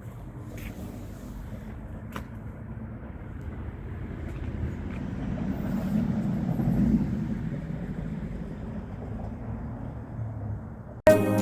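A car driving past, its low rumble building to a peak about two-thirds of the way in and then fading away. Music cuts in abruptly at the very end.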